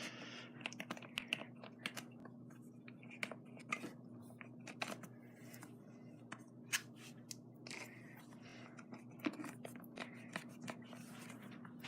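A nearly empty plastic lotion bottle being worked to get the last lotion out: scattered faint clicks and taps throughout.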